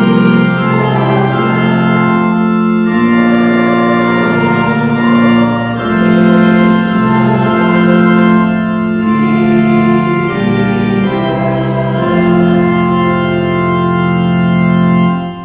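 Church organ playing a hymn in held chords that change every second or two, then stopping abruptly near the end.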